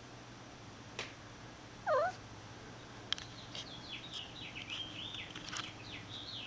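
A cat gives a short, chirping call about two seconds in. From about three seconds a quick run of high chirps follows, with a few light taps among them.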